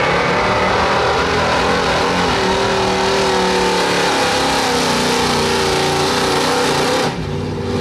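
A 1978 Dodge W250 four-wheel-drive pickup's stock gasoline engine running hard at high revs under heavy load, dragging a weight-transfer sled down a blacktop pulling track. About seven seconds in, the engine sound drops off suddenly as the pull ends.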